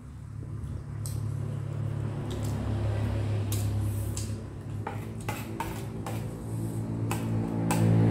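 Metal spoon clinking and scraping against ceramic plates during a meal, in scattered short clinks that come more often in the second half. A low steady hum underneath grows louder near the end.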